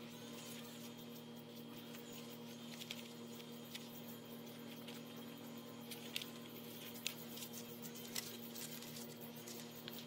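Light rustling and a few sharp little clicks as dandelion stems are handled and pushed into holes in a sheet of cardboard, the sharpest clicks coming in the second half. A steady low hum lies underneath.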